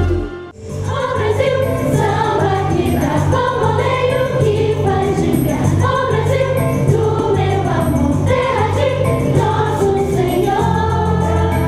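Background music with sung vocals over a steady bass line, starting after a brief drop in level about half a second in.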